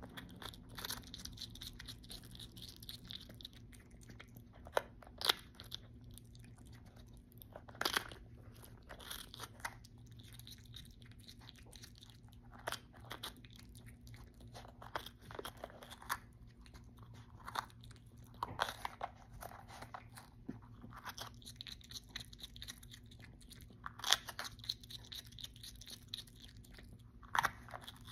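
A pet striped skunk biting and chewing a raw red bell pepper: sharp crunches at irregular intervals, a few of them loud, with quieter chewing in between.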